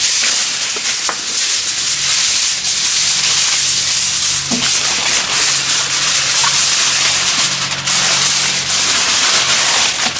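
Aluminum foil crinkling and rustling continuously as a sheet is folded and crimped by hand around a rack of ribs, with a few sharper crackles.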